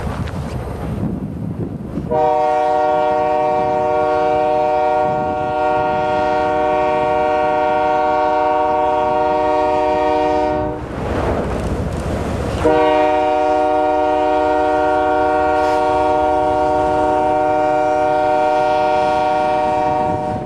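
Train horn on the BNSF rotary snowplow train sounding two long steady blasts. The first starts about two seconds in and lasts about nine seconds; the second follows after a gap of about two seconds and lasts about eight. Beneath them is the steady rumble of the approaching plow train.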